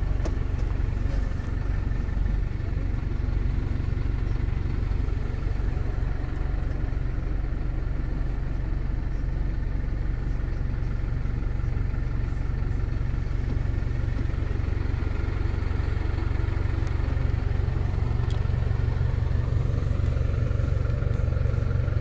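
MAN 12.220 truck's diesel engine idling steadily, heard from inside the cab: an even low rumble with no change in revs.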